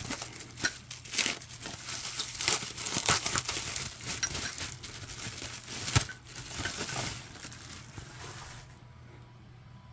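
Bubble wrap crinkling and crackling as it is handled and pulled off a part by hand, with many sharp crackles, stopping near the end.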